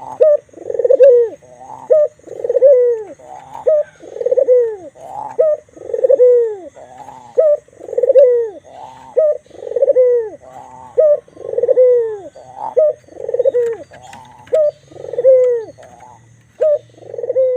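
White ringneck dove (puter) cooing over and over, a steady run of arched coos a little more than one a second. This is the dove's full song, which its keepers call 'manggung'.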